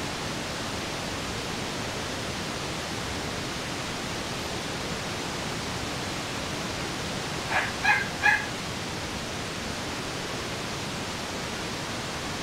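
A four-week-old Shih Tzu puppy gives three short, high-pitched yips in quick succession about two-thirds of the way through, over a steady hiss.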